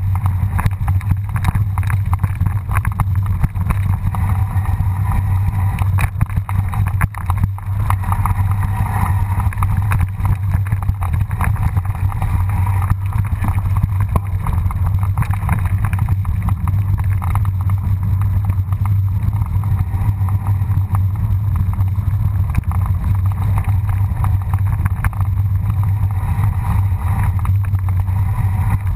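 A mountain bike rolling downhill over a dirt and gravel trail: a steady rumble with constant small knocks and rattles, and wind buffeting the microphone.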